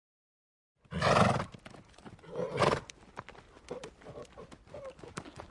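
A horse calling: two short loud blasts, about a second in and again about two and a half seconds in, with light scattered knocks between them, likely hooves.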